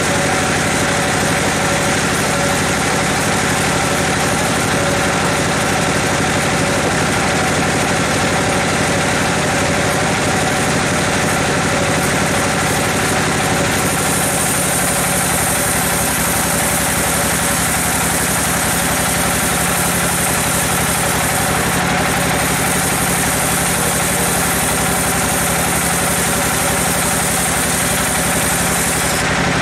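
Large band sawmill running, its blade cutting lengthwise through a giant teak log with a steady machine drone. About halfway through, the sound shifts and takes on a higher hiss.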